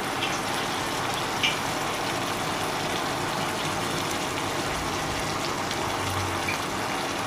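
Chopped vegetables sizzling steadily in hot oil in a nonstick wok, with dark soy sauce being poured in. A couple of faint clicks sound early on.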